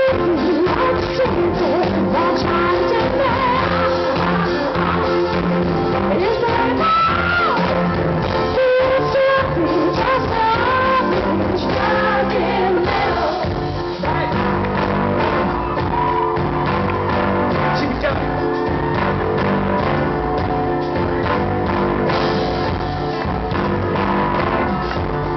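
A live pop band playing in a concert hall, with a singer's voice over the music for roughly the first half; after that the band plays on with little singing.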